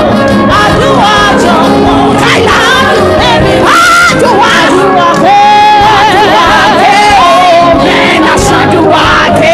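A gospel worship song: a woman sings into a microphone over instrumental backing, holding long notes with vibrato, with other voices joining in.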